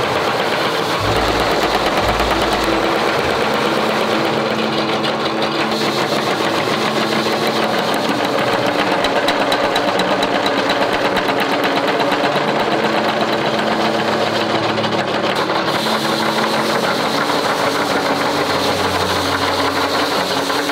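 Mechanical spring power hammer pounding rapidly on a red-hot steel bar, drawing it out. The blows follow each other in a fast, even, unbroken rhythm.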